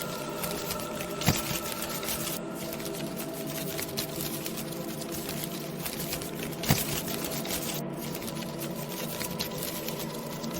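Halloween ambience soundscape: a steady drone of several held tones under a dense, even crackle, with two sharp clicks, one about a second in and one past the middle.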